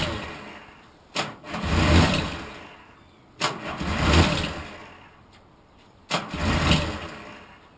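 Triumph Trident T160's electric starter cranking the three-cylinder engine in three short attempts, each starting sharply and dying away without the engine taking. The engine won't fire because the kill switch is cutting the ignition, which the owner finds soon after.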